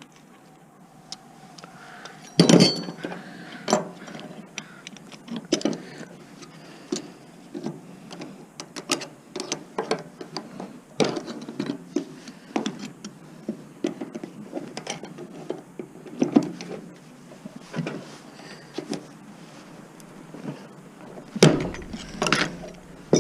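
Irregular metal clanks, clicks and knocks of hand tools working on sheet-metal parts and brackets of an appliance being stripped for scrap. The loudest knocks come about two and a half seconds in and again near the end.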